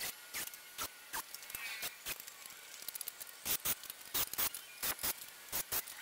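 Irregular sharp clicks and knocks of wood and tools being handled: 2x4 lumber blocks and a cordless drill worked around a wooden frame, the knocks coming thicker in the second half.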